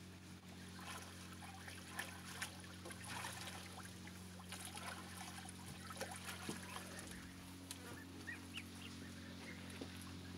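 Domestic geese bathing in a small pond: irregular splashing and dribbling water, with a few short goose calls and gosling peeps.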